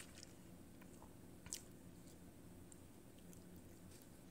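Near silence: room tone with a few faint soft clicks, the clearest about one and a half seconds in.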